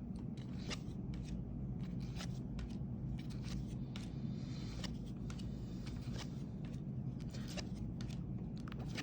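Trading cards being handled and slid off a stack one at a time, making soft irregular ticks and slides over a faint steady low hum.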